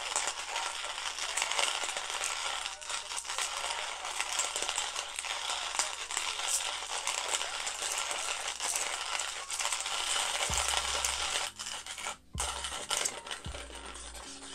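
Hand-cranked coffee grinder grinding whole roasted beans: a continuous gritty crunching and rattling as the handle turns.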